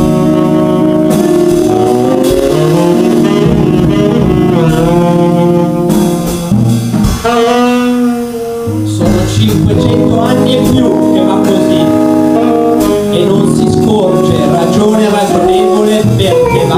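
Tenor saxophone playing a jazz line live over a small band, its notes sustained and changing every second or so, with a brief quieter bending passage about halfway through.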